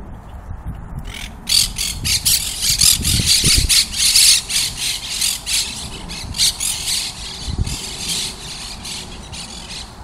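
A flock of monk parakeets (Quaker parrots) screeching: many harsh, rapid calls overlapping, starting about a second in, loudest in the first half and thinning toward the end.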